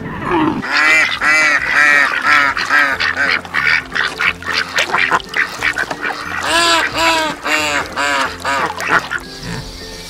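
Ducks quacking in quick runs of short calls, with a brief pause about midway.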